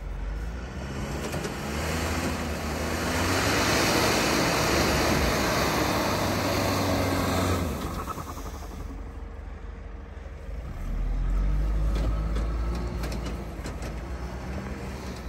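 A 2009 Mitsubishi L200 Triton pickup's engine working off-road, its pitch rising and falling as the revs change. A loud rushing noise swells from about two seconds in and drops away near eight seconds, and the engine surges again around eleven seconds.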